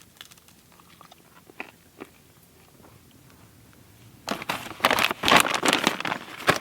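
A person biting into and crunching dry, freeze-dried steak pieces: a few faint clicks at first, then loud, rapid crunching starting about four seconds in.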